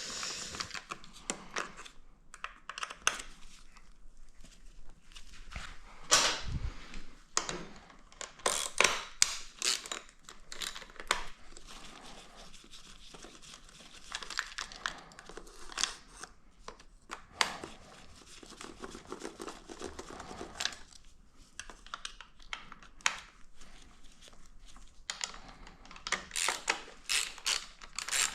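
Hand work on a motorcycle: scattered rustling, tearing and small knocks of parts being handled and marked with tape, with the quick clicking of a hand ratchet in the last couple of seconds.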